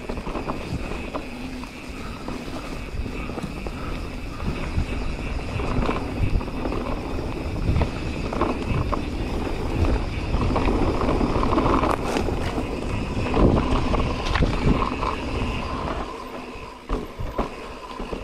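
Mountain bike riding fast down a forest trail: tyres rolling over dry leaves and dirt, wind on the microphone, and frequent knocks and rattles from the bike over bumps. It gets louder from about ten seconds in and eases off near the end.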